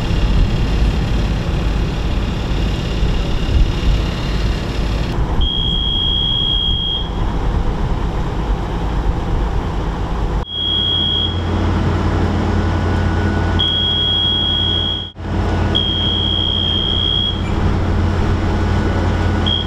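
Large mobile crane's diesel engine running steadily while it lifts a heavy load. A high, steady warning buzzer sounds on and off, about five times.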